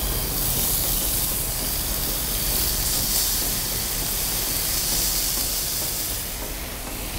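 Raw ground-beef burger patties sizzling on a hot Blackstone flat-top griddle: a steady hiss as one patty after another is laid on the steel.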